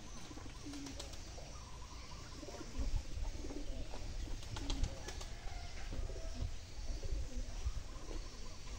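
Birds calling in short, low, scattered calls, with a low rumble coming in about three seconds in.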